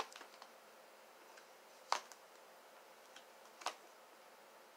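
Tarot cards being dealt onto a cloth-covered table: a few faint taps, the clearest about two seconds in and another near four seconds.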